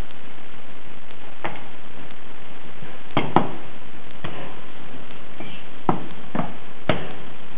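Wooden rolling pin rolling dough on a stainless-steel counter, with several separate knocks as the pin and the dough are set down and handled, over a steady loud hiss.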